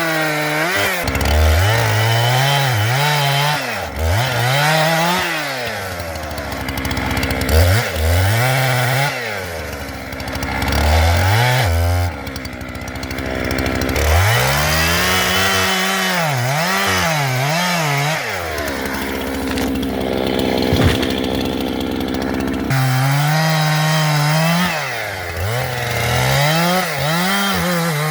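Jonsered two-stroke chainsaw cutting into wood, its engine pitch dipping and climbing over and over as the chain bites and frees up, with a few steadier stretches between.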